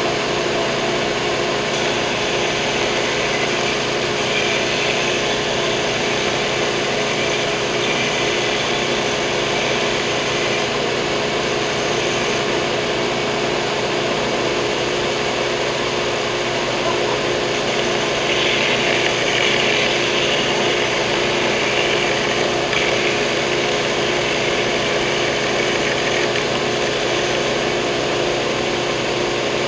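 Stationary belt sander running steadily, with a rasping hiss that comes and goes as the edges and corners of a hardwood cutting board are pressed against the moving belt. The sanding is loudest about two-thirds of the way through.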